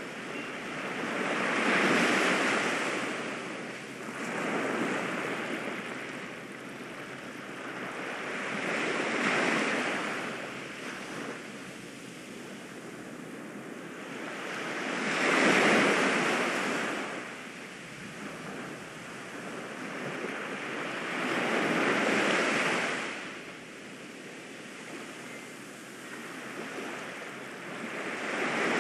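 Ocean surf: waves wash in and draw back, the sound swelling and falling away every few seconds.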